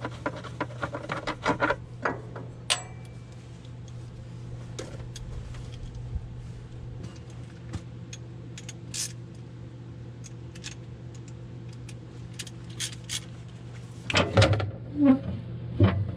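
Scattered metallic clicks and clinks of hand tools, including a socket wrench, being handled on the Gator's frame and engine parts, over a steady low hum. A burst of louder clattering comes near the end.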